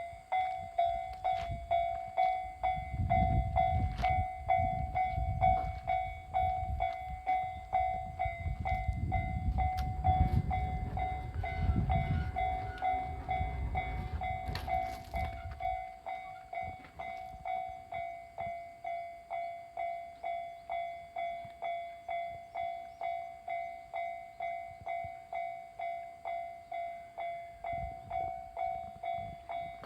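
Level-crossing warning bell ringing with evenly repeated dings throughout, while a train pulling a trolley car rumbles through the crossing. The rumble fades away about halfway through, leaving the bell ringing on.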